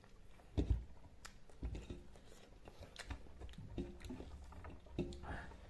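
Close-up chewing and mouth clicks of a person eating rice and chicken by hand, with a few dull thumps, the loudest about half a second in.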